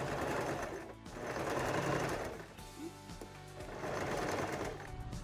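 Pfaff sewing machine stitching fabric in three runs of about a second or so each, with short pauses between, over background music.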